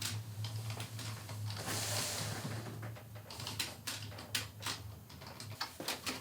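Scattered light clicks and taps over a low steady hum, with a brief hiss about two seconds in.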